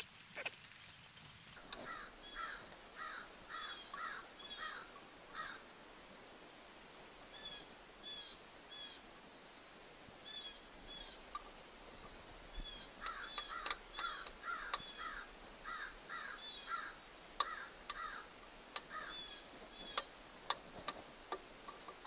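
A bird calling in repeated series of short chirps, with a few sharp metallic clicks in the second half from a screwdriver working a screw on a distributor breaker plate.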